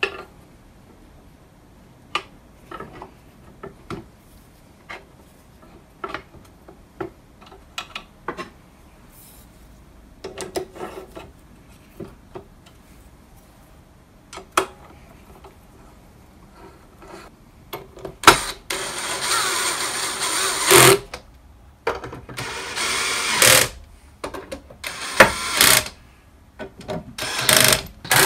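Aluminium plates and bars being handled and set in place, with scattered light clicks and knocks, then a cordless drill/driver running in several bursts, the first and longest about three seconds, driving screws into the aluminium table frame.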